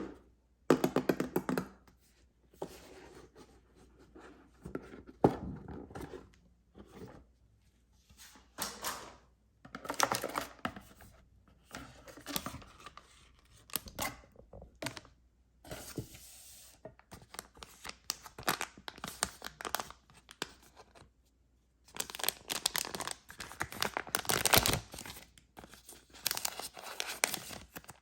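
Candy and chocolate packaging being torn open and crinkled by hand, in a run of short, irregular tearing and rustling bursts.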